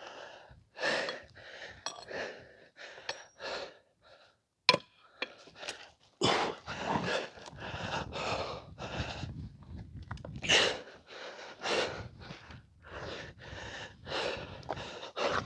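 A person breathing hard close to the microphone, heavy panting breaths in an uneven run, broken by a short pause. A single sharp click about five seconds in.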